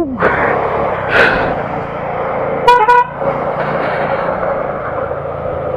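Two short vehicle-horn toots about two and a half seconds in, over the steady running noise of a moving motorcycle in traffic.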